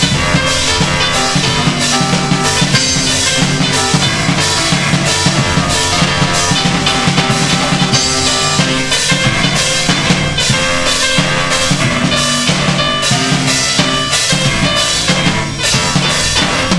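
A recorded piece of keyboard music, the keyboard played through guitar-amp effects, with a drum kit keeping a steady beat, played back over the hall's loudspeakers.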